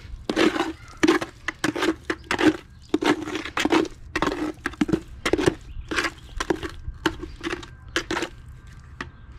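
A metal hand trowel stirring and scraping wet quick-setting concrete in a plastic bucket, in quick strokes two or three a second. The strokes stop near the end.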